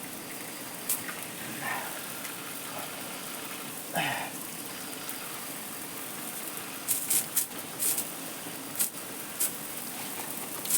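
Steady rush of water pouring from a pipe during a bath, with a few sharp splashes in the second half. A short vocal sound comes about four seconds in.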